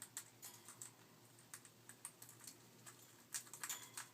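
Faint, irregular sharp clicks and ticks from a white-capped Pionus parrot's beak, a few scattered strokes with a quick cluster about three and a half seconds in.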